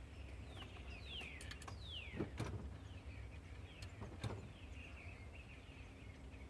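Birds chirping outdoors: a few short whistles that slide down in pitch, over faint low background rumble with a few light clicks.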